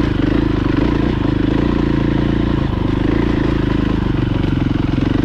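Dirt bike engine running steadily while the bike rides over a rocky dirt track, its engine note dipping and rising a little a few times.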